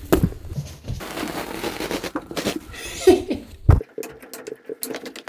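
Foam and bare mattress springs being handled: rustling and scraping, with several knocks and one louder thump just after the middle, and a short vocal sound shortly before the thump.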